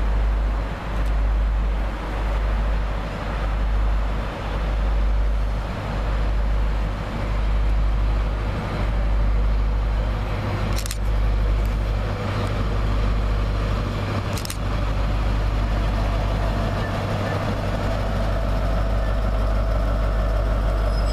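Class 43 InterCity 125 (HST) diesel power car pulling into a station platform, its engine growing louder as it nears. A low rumble pulses through the first half, and two sharp clicks come a few seconds apart about halfway through.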